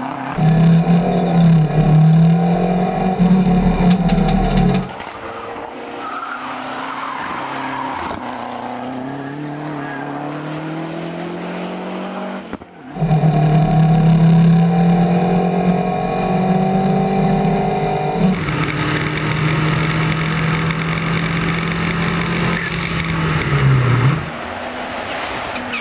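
Lancia Delta Integrale rally car's turbocharged four-cylinder engine being driven hard at high revs. Loud stretches with the revs held, a quieter stretch in the middle where the revs climb steadily, then loud again until it drops away near the end.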